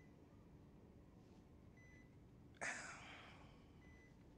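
Near silence, with a faint patient-monitor beep about every two seconds and one short, sharp breath about two and a half seconds in.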